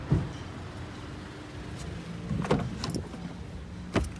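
A car running with a steady low hum, broken by a few sharp knocks and clicks: one right at the start, a cluster about two and a half seconds in, and another near the end.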